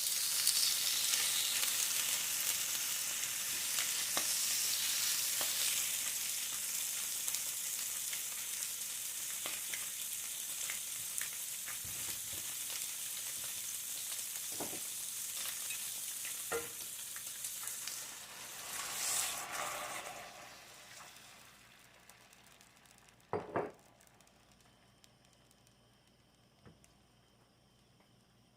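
Food sizzling in a hot pan, with a few light clicks and taps of a utensil. The sizzle fades and stops about twenty seconds in, followed by a couple of knocks.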